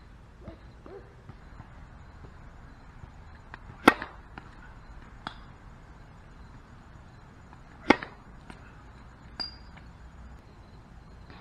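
Tennis serves: a racket hits the ball sharply twice, about four seconds apart, with a few fainter knocks between.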